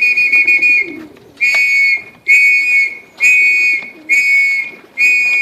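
A whistle blown in short, steady, high blasts, about one a second, the kind a pigeon fancier uses to call young racing pigeons in to the loft.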